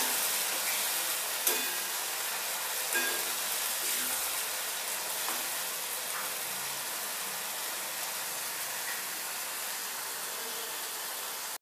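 Ginger-garlic and onion paste sizzling in hot oil in a kadai as it is sautéed down, stirred with a spatula that knocks and scrapes against the pan a few times.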